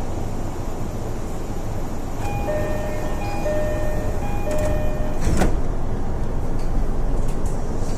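JR East E233-series train door chime sounding three high-low two-tone pairs, then a sharp thud of the sliding doors shutting. A steady rumble of the train runs underneath.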